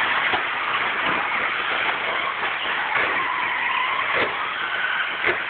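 Several two-wheel-drive stock-class electric RC buggies racing on a dirt track: motors whining and rising and falling in pitch over a steady noise of tyres on dirt, with a few short knocks, the sharpest near the end.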